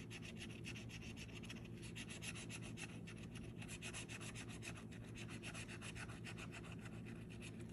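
Edge of a metal bottle opener scraping the latex coating off a paper scratch-off lottery ticket in a rapid run of short back-and-forth strokes.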